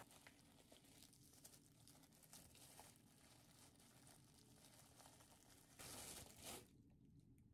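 Near silence: faint room tone, with a brief soft noise about six seconds in.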